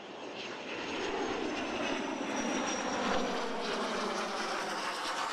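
Steady aircraft engine noise, heard from an airliner's cockpit, fading in over about the first second. A faint high whine drifts slowly down in pitch through it.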